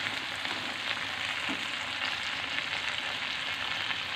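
Chopped chillies, shallots and sweet soy sauce sizzling steadily in hot oil in a wok, stirred and scraped with a metal slotted spatula.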